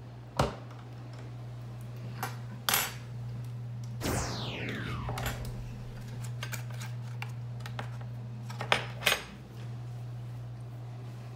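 Kitchen clatter of dishes and utensils: a sharp snap as the waffle maker's lid is shut, then a metal butter knife clinking against a ceramic plate, with two sharp knocks near the end. A short falling squeal sounds about four seconds in, over a steady low hum.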